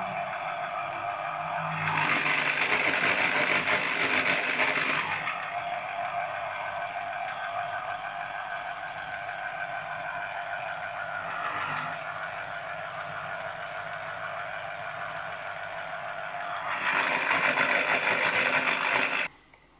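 Small electric citrus juicer's motor whirring steadily as an orange half is pressed onto its spinning reamer. It gets louder for a few seconds near the start and again near the end, then cuts off suddenly just before the end.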